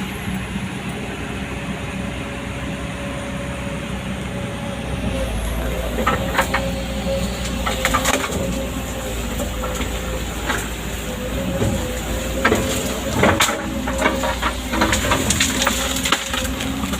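Hydraulic excavator's diesel engine running steadily under load, with a steady high whine over it and scattered sharp knocks and cracks as it works.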